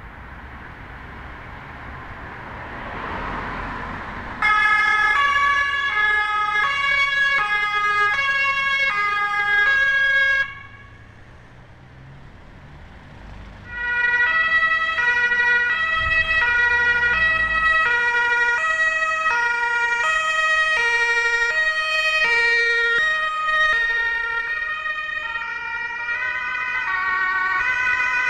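German two-tone emergency-vehicle sirens (Martinshorn) on ambulances, switching back and forth between a high and a low note. Vehicle and tyre noise comes first. About four seconds in a siren starts abruptly and cuts off about ten seconds in. After a short lull, another two-tone siren sounds through to the end with a steady high tone under it.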